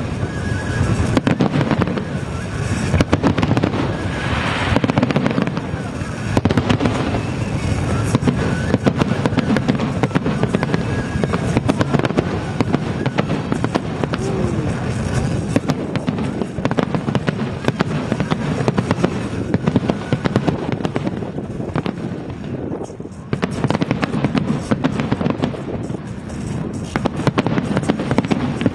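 Aerial fireworks display: a dense, continuous run of bangs and crackling bursts, easing briefly about two thirds of the way through before building again.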